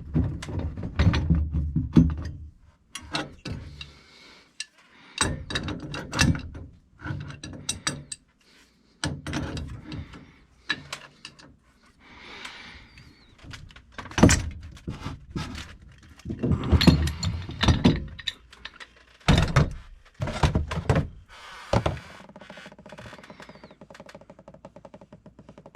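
Irregular metal knocks, clanks and heavy thunks of tools and plumbing parts being worked, with some deep thuds among sharper clinks. The knocking stops about 22 seconds in, leaving a faint steady hum.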